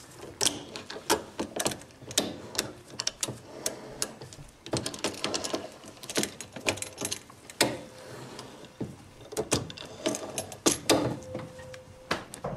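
Metal roller chain of a clamp and locking pliers clinking and rattling in irregular clicks and taps as the two steel halves of a Citroën DS19 brake accumulator sphere are screwed tight, with a brief squeak near the end.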